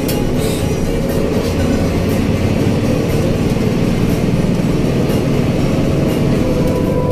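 Cabin noise of an intercity bus driving at speed: a steady, loud rumble of engine and road, with light rattles now and then.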